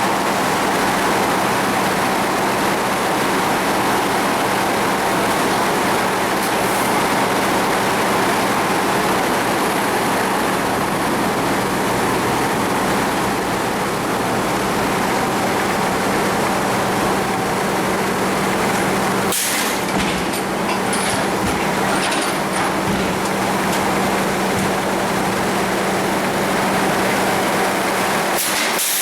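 Sawmill machinery running with a steady loud drone and hum, and a brief sharp knock about twenty seconds in.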